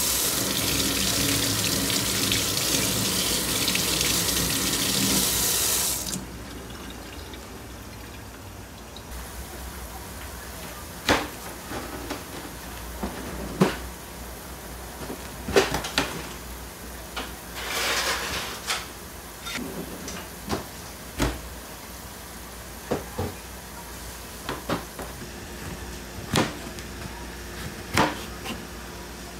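Water running from a tap into a sink, turned off about six seconds in, followed by scattered light knocks and clicks of objects being handled.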